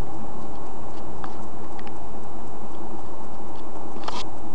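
Steady noise inside a moving car's cabin, with a few scattered light ticks and one louder short click near the end.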